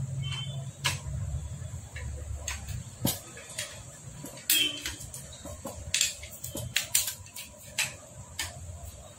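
Sharp metal clicks and taps at an irregular pace as a long screwdriver works against the casing of a Hero Splendor Plus engine during assembly, with a low rumble under the first two seconds.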